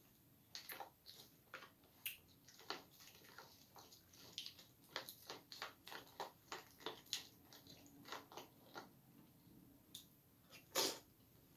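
Crunchy caramel macchiato cereal being chewed, mixed with a spoon clicking and scraping in a plastic bowl: quick irregular crunches and clicks, several a second, with one louder click near the end.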